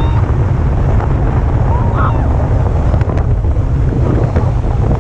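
Heavy wind buffeting the microphone of a camera on an inflatable towable ride pulled at speed behind a speedboat, with the rush and splash of water spraying off the hull as it skims the sea. A steady, loud rumble with no break.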